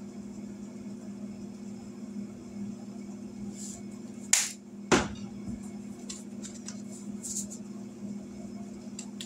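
A seasoning shaker being handled and shaken over a pot, with a few short rattling shakes and two sharp clicks about half a second apart near the middle, all over a steady low hum.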